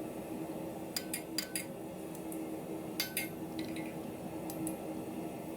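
Light hammer taps on a small pure-iron bar on the anvil, each with a short metallic ring: a quick run of about four taps a second in, a few more around the middle, and a couple near the end, over a steady low hum.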